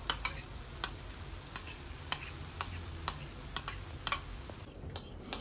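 Chow mein noodles frying quietly in a pan, a faint hiss broken by sharp clicks about every half second as sauce is scraped from a plate onto them.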